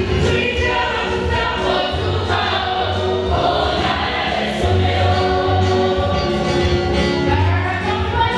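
A choir of students singing a gospel song together over a deep, pulsing bass beat.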